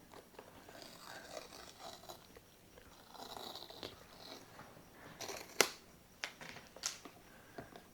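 Faint rustling and a few sharp clicks and taps from hands opening a new MacBook box and its packaging. The loudest click comes about five and a half seconds in.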